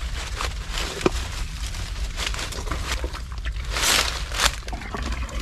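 Rustling and crackling of someone pushing on foot through nipa palm fronds and brush, with many short snaps and a louder rustle about four seconds in, over a steady low rumble.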